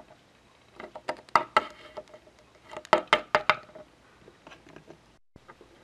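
Small plastic toy figures tapped on a wooden floor, hopped along to make them walk: quick runs of light knocks, two or three clusters in the first half and fainter taps later.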